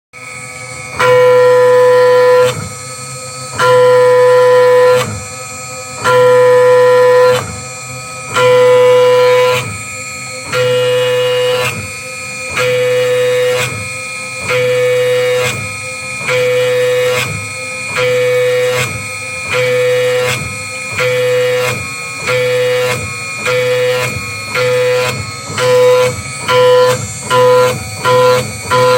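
End mill in a DIY CNC router spindle at 7000 rpm cutting a pocket in trochoidal loops. A steady pitched cutting whine swells each time the cutter sweeps into the wall and eases between passes. The swells come about every two and a half seconds at first and grow quicker and shorter toward the end, about two a second.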